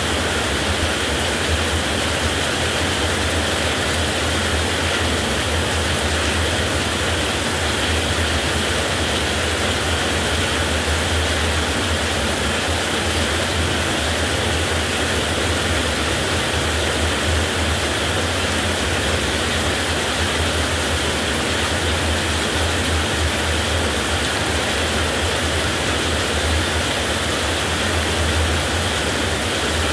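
Heavy rain falling in a steady, unbroken downpour, with a constant low rumble underneath and no thunderclaps.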